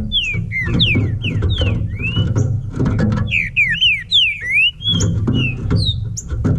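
Green-winged saltator (trinca-ferro) singing a series of clear slurred whistles, some rising and some falling, with the notes coming quicker about halfway through. A steady low rumble runs underneath.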